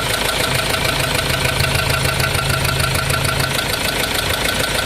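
Ford Ranger engine running at idle with a fast, even knock throughout: the engine knocking the truck is being diagnosed for.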